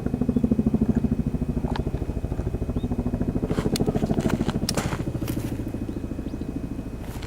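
A small engine running steadily with a fast, even pulse, with a few sharp clicks and knocks over it about halfway through.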